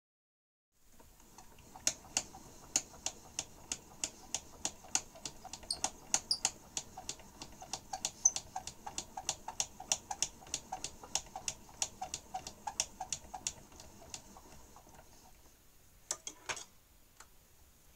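Spring-driven motor and turntable of a portable wind-up gramophone running with the needle still up, giving a light regular tick about three times a second. Near the end there is a short clatter as the chrome soundbox and tone arm are handled.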